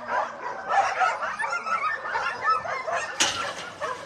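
A group of dogs making many short, high-pitched calls that overlap one another, with a brief clatter about three seconds in.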